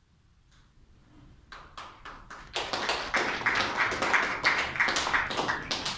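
A small group of people clapping: a few scattered claps about a second and a half in, swelling into steady applause.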